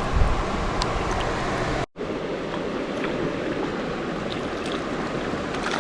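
Farmington River water running steadily, an even rushing noise that cuts out for an instant about two seconds in.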